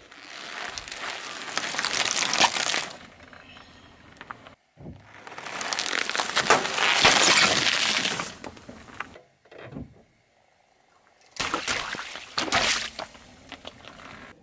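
A car tyre rolling slowly over filled balloons and small packets on asphalt, crushing them with crackling and bursting noises. The crushing comes in three separate stretches of a few seconds each, with quieter gaps between.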